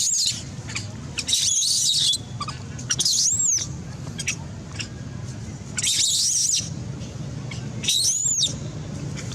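A series of five short, very high-pitched calls, each rising and falling in pitch over about half a second and coming every one to two seconds, over a steady low hum.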